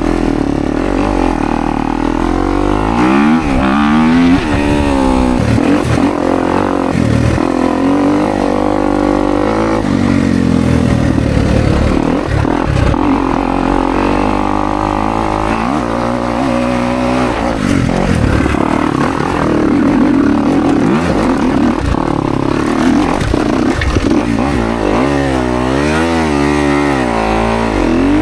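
Kawasaki KX250X dirt bike's single-cylinder four-stroke engine being ridden hard on a rough trail, its pitch rising and falling constantly with throttle and gear changes.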